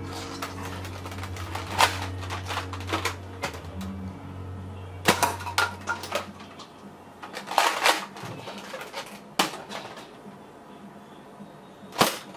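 Sharp plastic clacks and knocks from a Nerf Mega Doublebreach blaster being loaded with Mega darts and handled, about half a dozen separate hits with the loudest near the end. A low steady music bed plays under the first half and stops.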